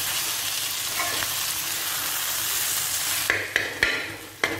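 Chopped parotta mixed with chicken gravy sizzling on a dosa griddle while a metal spoon stirs it. About three seconds in the sizzle drops away and the spoon scrapes and knocks against the griddle a few times.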